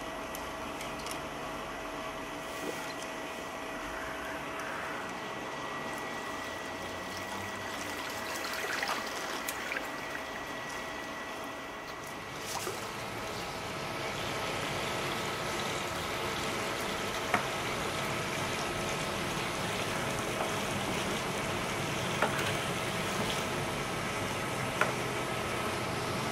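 Swimming pool water trickling steadily over a constant hum, with a few light clicks scattered through it.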